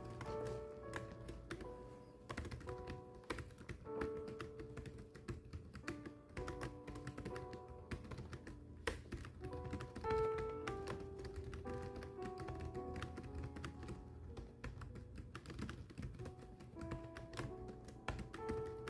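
Fast, irregular key clicks of typing on a keyboard, over soft background music with a slow melody.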